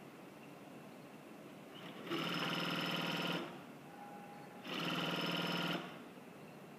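S-310 double-side cashmere invisible sewing machine running in two bursts of about a second each, one about two seconds in and one near five seconds, sewing the fabric as it is fed by hand.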